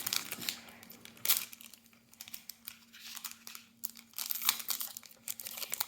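Plastic wrapping of a trading-card premium pack being torn open and crinkled by hand: a series of irregular crackles and rips.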